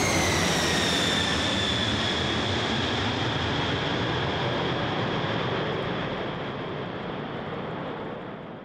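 Jet aircraft noise: a steady rush with a high whine that falls in pitch over the first couple of seconds, then holds and fades out near the end.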